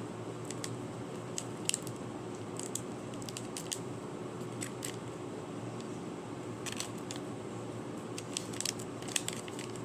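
Plastic and paper toy packaging handled by hand: irregular light clicks and crinkles, with a steady low hum underneath.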